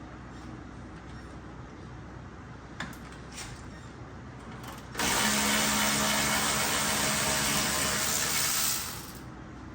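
A few faint clicks, then a shop power tool runs loudly for about four seconds, with a hiss and a steady hum. It starts abruptly about halfway through and winds down near the end.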